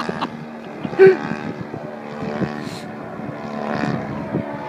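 DLE 111 twin-cylinder petrol engine of a large RC aerobatic plane, on stock mufflers, droning steadily in flight overhead. A brief loud blip sounds about a second in.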